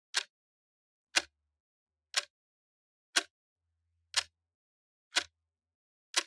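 Clock ticking steadily once a second, sharp dry ticks with silence between.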